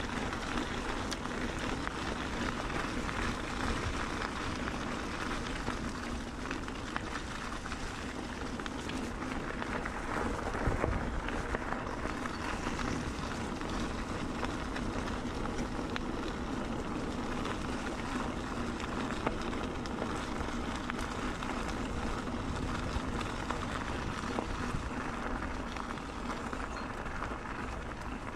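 Bicycle tyres rolling steadily over a wet gravel and leaf-covered path, heard from a handlebar-mounted camera, with a constant rolling rush and scattered small clicks and rattles from the bike over bumps.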